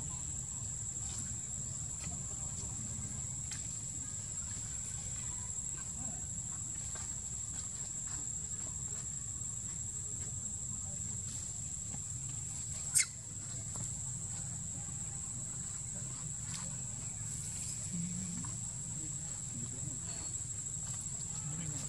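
Steady high-pitched drone of insects, such as cicadas or crickets, over a low background hum. One sharp click sounds about two-thirds of the way through, the loudest moment, with a few faint ticks scattered around it.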